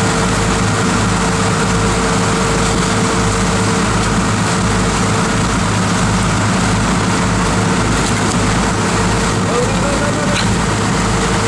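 Sportfishing boat's engine running steadily under way, a constant low hum over the rush of churning wake water. A short rising-and-falling tone near the end.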